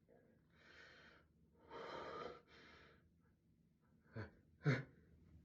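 A person breathing in and out heavily, three drawn breaths followed by two short, sharp gasping catches of breath about half a second apart near the end: the build-up to a sneeze.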